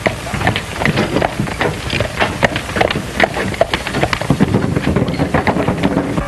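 A run of irregular knocks, several a second, over the steady hiss of an early-1930s film soundtrack.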